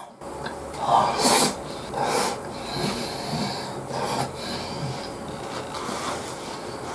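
Mouth sounds of a man eating a beef-and-rice bowl with chopsticks: noisy slurps as mouthfuls go in, with chewing and nose breathing between. The three loudest slurps come about one, two and four seconds in.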